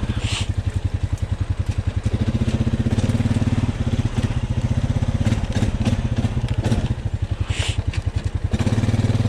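Honda Rubicon ATV's single-cylinder engine running under load with a fast, even pulsing as the quad digs through deep mud, with two brief hisses, one about half a second in and one near the end.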